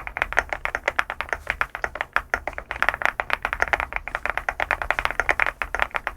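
Fast typing on an SPM LUCK68 custom mechanical keyboard: a rapid, dense run of keystrokes, many a second, with clacky key sounds.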